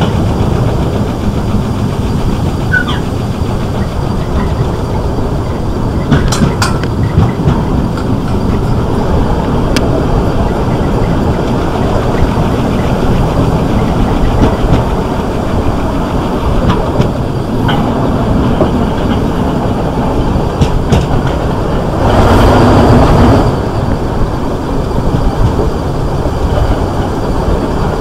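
Class 465 Networker electric multiple unit running, a steady loud rumble of traction motors and wheels on the rails with scattered clicks of wheels over rail joints. A louder rushing burst lasts about a second and a half late on.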